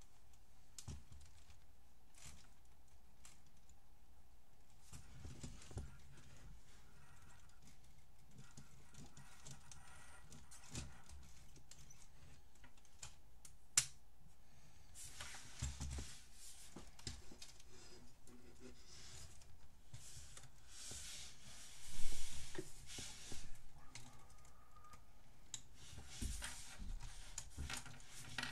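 Plastic Lego Technic parts of a model car clicking, knocking and rattling as it is handled and turned over on a wooden table. There is one sharp click about halfway through, then longer stretches of rustling and scraping, loudest about three quarters of the way in.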